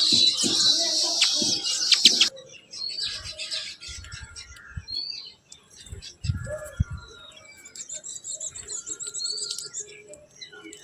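Birds chirping: a loud, dense chatter of many birds that stops abruptly about two seconds in, followed by scattered single chirps and short whistles. A dull thump comes about six seconds in.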